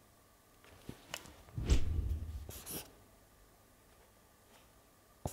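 Quiet room with a few small ticks, then a soft thump and rustle of handling about two seconds in, followed by brief scratches of a felt-tip marker writing on paper on a clipboard.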